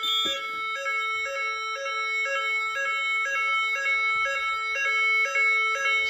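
Fire alarm evacuation sounders going off together in general evacuation, giving the French NF S 32-001 evacuation signal: a low tone broken by a short higher note about twice a second, with further pulsing higher tones from a second sounder layered over it.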